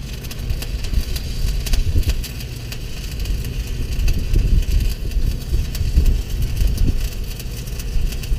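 Electric arc welding a steel plate seam: a steady, dense crackling sizzle from the arc, with a low engine rumble running underneath.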